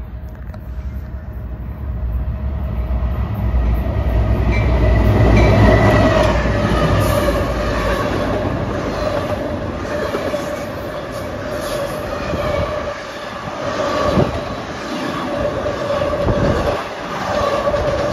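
A fast CSX double-stack intermodal freight train passing close by. The rumble builds to a peak about five or six seconds in as the diesel locomotives go by, with wind buffeting the microphone. Then the stack cars and trailer cars roll past with clattering wheels and a steady ringing tone.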